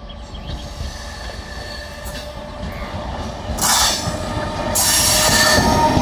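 Electric multiple-unit local train approaching and running past close by: the rumble of wheels on the track grows louder, with two loud hissing bursts about three and a half and five seconds in, then the carriages rush past at their loudest near the end.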